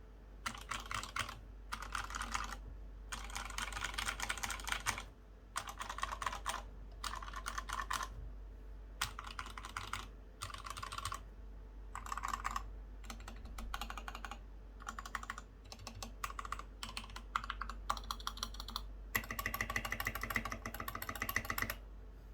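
Typing on a custom GK68X mechanical keyboard with lubed Gateron White switches, SA-profile keycaps and foam dampening in the case and between PCB and plate: fast runs of keystrokes lasting a second or two, broken by short pauses.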